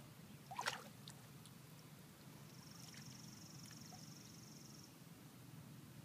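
Quiet outdoor ambience with a brief, sharp, rising chirp about half a second in, then a high, fast-pulsing trill lasting about two seconds in the middle.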